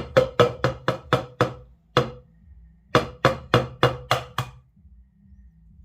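An egg tapped again and again on the rim of a ringing bowl to crack it. Two quick runs of taps at about four a second, with a pause of about a second between them.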